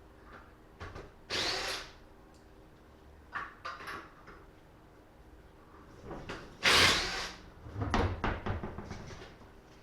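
Cordless impact wrench hammering on a wheel's lug nuts in several short bursts, the loudest about a second in and a little past the middle, as the nuts are broken loose to take the wheel off.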